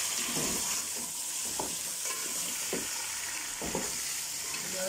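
Mutton pieces sizzling in hot oil in a metal pot as they are browned (bhuna), with a spatula stirring them and scraping the pot three times.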